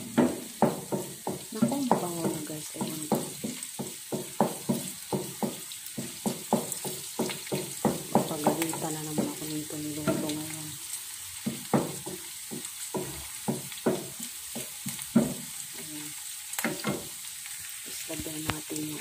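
Chopped onion, garlic and browned pork bits sizzling in hot oil in a nonstick frying pan over a high flame, stirred with a wooden spatula that scrapes and knocks against the pan several times a second.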